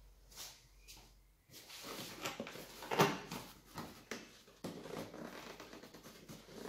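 Cardboard shipping box being opened by hand: flaps and lid scraping and rustling, with scattered clicks and one sharp knock about three seconds in, starting after a quiet second and a half.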